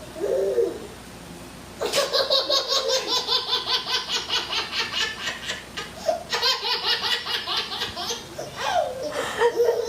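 A baby laughing in long runs of rapid belly laughs. The laughter sets in sharply about two seconds in and breaks off briefly twice before starting again.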